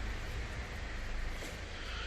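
Steady machine noise: an even hiss over a low hum, with no separate knocks or clicks.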